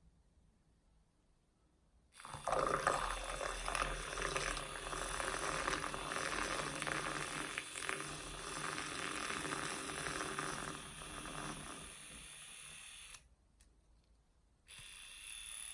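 Liquid running steadily into a cup over a low machine hum, starting suddenly about two seconds in. It softens, stops briefly, then starts again near the end.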